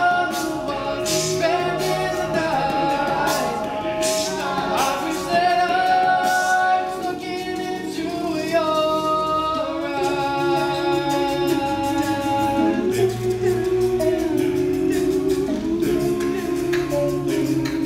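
Male a cappella group singing in close harmony, with no instruments: a low sung bass line under higher voice parts. Sharp, crisp percussive ticks run through it.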